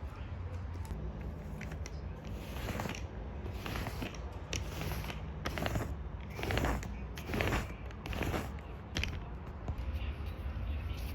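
A Cavalier King Charles Spaniel reverse sneezing: a run of about nine noisy snorting breaths, each under a second apart, the strongest about two-thirds of the way through. The reverse sneezing comes from a blocked nose during an illness.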